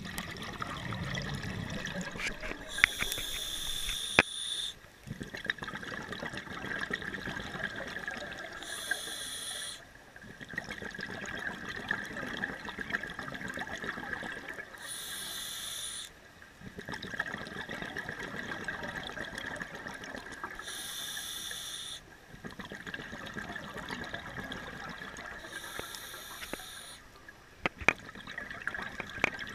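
Scuba diver breathing through a regulator underwater: about five breath cycles, each a short hissing inhale followed by a long bubbling exhale. A faint steady high whine runs underneath.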